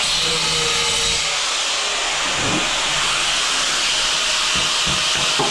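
Angle grinder cutting into hard tile: a steady, high, hissing grind of the blade working through the tile.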